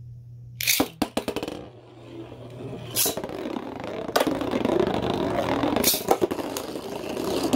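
Beyblade spinning tops launched by pulling their string launchers, three quick ripping zips, then the tops spinning, scraping and clattering against each other on a plastic saucer-sled stadium.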